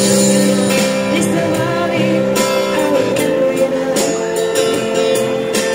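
Live amplified band music: guitar chords and drums and cymbals under a singer's held notes through a microphone.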